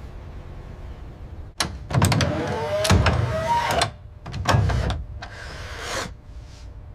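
A motorized mechanism whirring and clunking in several short runs, with metallic squeaks, over a low steady hum. It starts about a second and a half in and is loudest for the next two seconds, then comes in shorter runs until about six seconds in.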